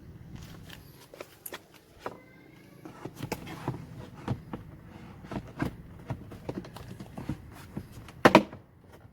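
Subaru Impreza WRX STI's plastic glove box drawer being fitted back into the dash: a string of light plastic knocks and clicks, then a loud click near the end as the drawer snaps into place.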